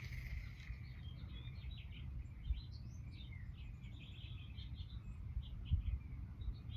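Small birds chirping and calling, many short chirps, over a low steady rumble of wind noise.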